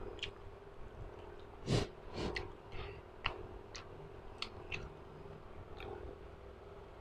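Close-miked mouth noises of someone eating spicy instant noodles: scattered small lip smacks and mouth clicks, with one louder sniff about two seconds in from a nose running with the spice.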